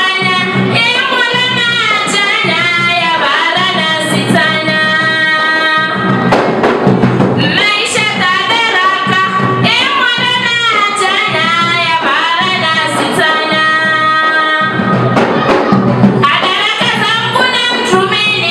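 Women singing a song over a drum beat, music that carries on throughout.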